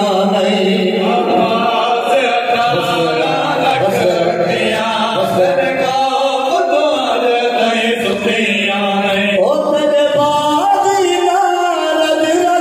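Male voices chanting a Saraiki noha, a Muharram lament: a lead reciter with two backing singers joining in, sung into microphones.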